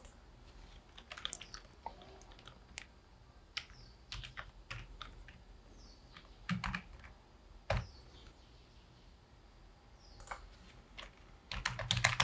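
Irregular keystrokes on a computer keyboard, mostly soft, with a few louder key presses and a quick run of keystrokes near the end.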